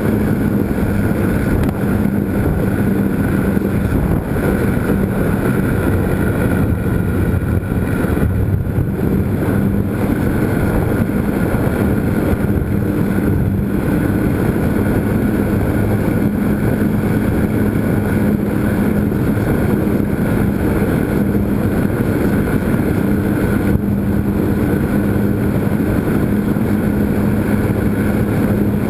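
A GWS Slow Stick's electric motor and propeller droning at a steady, even pitch, with air rushing past, heard from a camera mounted on the flying plane.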